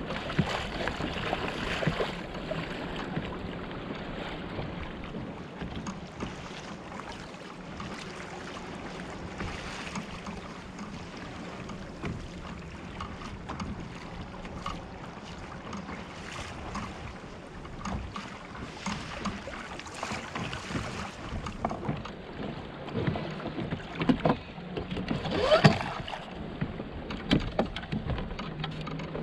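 Sea water lapping against a fishing kayak's hull, with a steady low hum underneath and scattered small knocks. There is one louder rush of splashing noise near the end.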